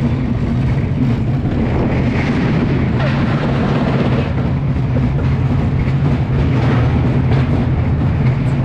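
Roller coaster car running along its steel track, heard from on board: a loud, steady rumble of the wheels with a low hum beneath it.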